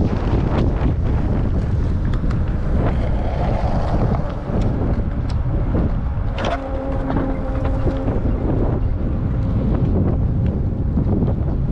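Wind rushing over the microphone while riding, a loud steady rumble. A steady pitched tone joins it a little past halfway and lasts about two seconds.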